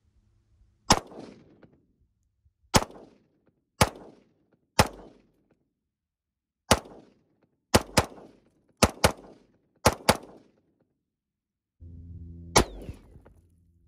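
About a dozen gunshots fired at an uneven pace, some in quick pairs, each followed by a short echo trailing off. A steady low hum comes in near the end.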